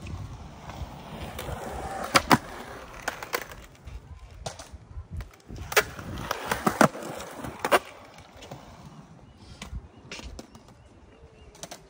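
Skateboard wheels rolling on concrete, with sharp clacks of the board hitting the concrete manual pad as nose manuals are tried: two about two seconds in, and a cluster of several a few seconds later.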